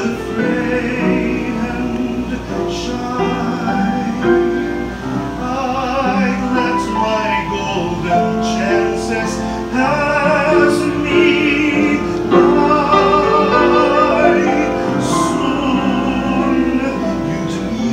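Operatic-style singing with wide vibrato, accompanied by a baby grand piano. The voice holds long notes over the piano chords.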